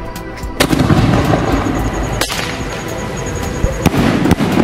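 Aerial sky-shot firework shells bursting: a sharp bang about half a second in, another a little after two seconds, and two more close together near the end.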